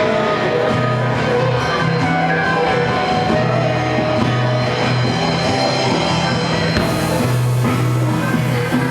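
Live rock band playing psychedelic rock, with guitars over a steady bass line; the sound gets brighter about seven seconds in.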